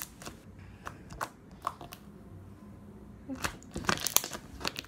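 Homemade glue-and-borax slime being poked and squished by hand, making scattered small clicks and pops, which bunch together about three and a half seconds in.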